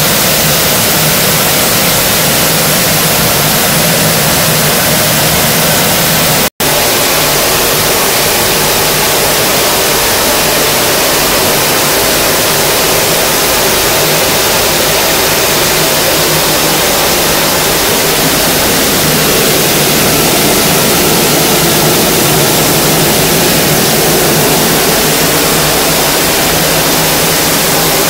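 Steady, loud, hiss-heavy running noise from a dal color-sorting machine line, with a faint low hum beneath. The sound cuts out for an instant about six and a half seconds in.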